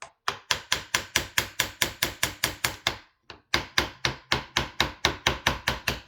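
Rapid hammer taps, about four or five a second, in two runs of a dozen or so blows with a brief pause about three seconds in. The hammering is working the rifle's forend end cap loose.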